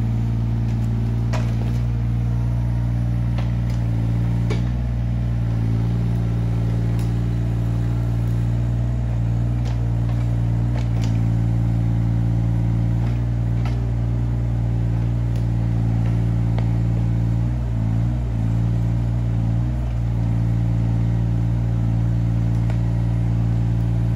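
Yanmar ViO17 mini excavator's three-cylinder diesel running steadily, with occasional sharp clicks. The engine note wavers briefly about three quarters of the way through.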